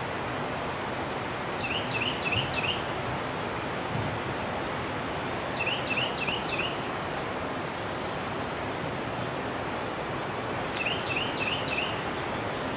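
A bird singing a short phrase of four quick, rising-hooked chirps, three times about four to five seconds apart, over a steady rushing background noise.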